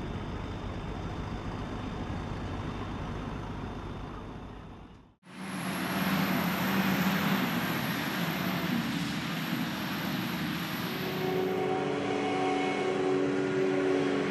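Tractor and machinery engines running with a steady rumble that fades out about five seconds in. Then a Krone forage harvester chopping grass alongside tractors comes in loud, with a high whine until about twelve seconds in and a steady engine drone after it.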